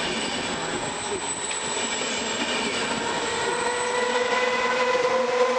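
Trenitalia Vivalto double-deck passenger train and its electric locomotive rolling past, a steady rumble with a whine that grows louder from about halfway as the locomotive goes by.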